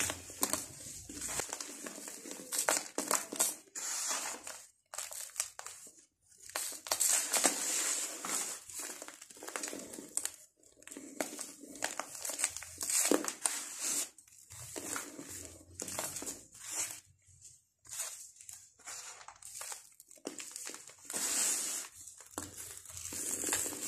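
Dry sand-cement mix being pressed and crumbled by hand, making a gritty, crackly crunching. It comes in short runs a second or two long, broken by brief pauses.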